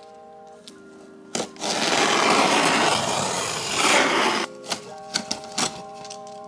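Box cutter slitting the packing tape along the seam of a cardboard box: a loud, even slicing noise for about three seconds, then a few light clicks as the blade works at the corner. Soft background music plays underneath.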